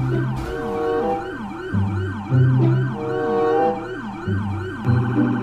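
Electronic police-style siren in a fast yelp, its pitch rising and falling about three times a second, with a low hum that comes and goes beneath it.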